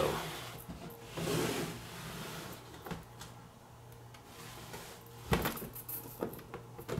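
Clear acrylic display-case panels being handled and shifted on a table: a few light knocks and clacks of hard plastic, the loudest about five seconds in, over a low steady hum.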